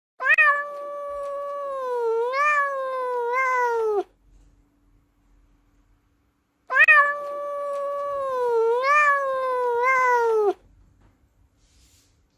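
Domestic cat giving two long, drawn-out meows of about four seconds each, separated by a pause of a couple of seconds. In each meow the pitch wavers and lifts briefly twice before falling away at the end, and the two calls sound nearly identical, like the same meow played twice.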